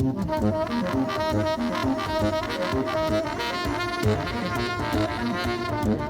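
Instrumental music for the dance: a held melody line over a quick, busy figure of short repeating notes.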